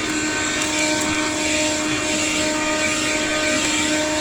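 Cheap handheld portable vacuum cleaner running steadily: a constant motor whine over the rush of air.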